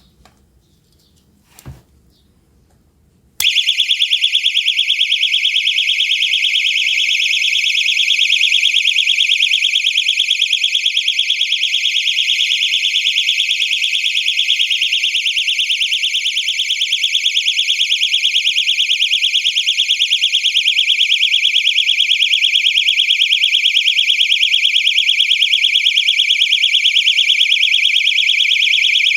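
Prokan PRK94 personal safety keychain alarm, rated at 130 dB, going off: after a faint click, a loud, high-pitched, rapidly pulsing shriek starts suddenly about three seconds in and keeps sounding without a break.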